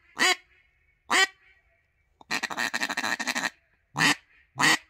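3D-printed PLA single-reed duck call with a mylar reed, blown as mallard hen quacks: two single quacks, a fast chuckle of short notes lasting about a second, then two more quacks. A deep call, kind of like an old hen.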